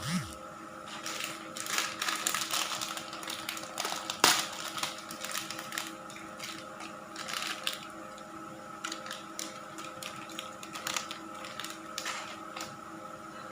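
Irregular clicks and clatter of a spoon against a dish as the seafood salad is handled, with the sharpest knock about four seconds in.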